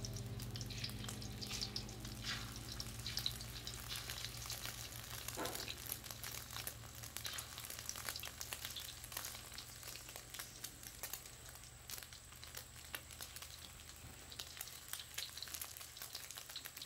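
Beaten egg frying in oil in a wok: a quiet sizzle with scattered small crackles, slowly dying down.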